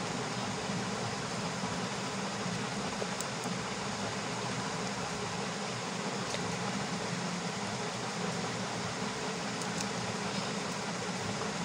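Steady hum and hiss of a running fan, with a few faint ticks of paper being handled.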